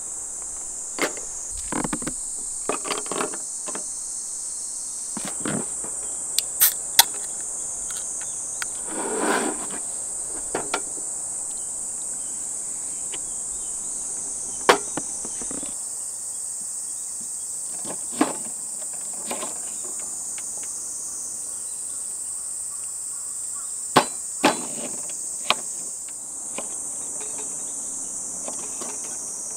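Insects droning steadily at a high pitch, with a dozen or so sharp, irregular knocks and clicks, and a brief rustle about nine seconds in.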